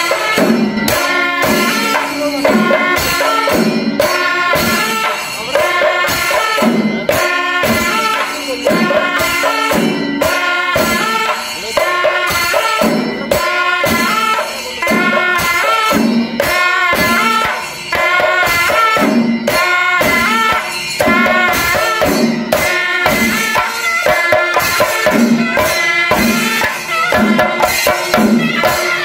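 Kerala temple melam ensemble: chenda drums beat a steady rhythm while a kuzhal (double-reed pipe) and kombu (curved brass horn) play short repeating phrases over it.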